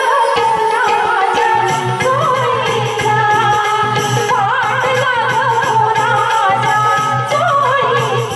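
Live Lavani folk song: a woman singing a wavering, ornamented melody over a keyboard and a steady, even drum rhythm, played through a stage sound system.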